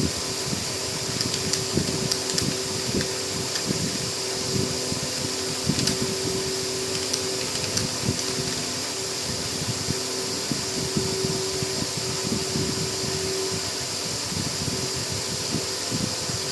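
Computer keyboard keys tapped in a quick, irregular stream over the steady hum of a fan.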